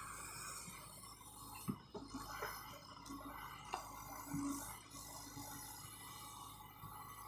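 John Deere excavator's diesel engine running low and steady, with a few faint knocks.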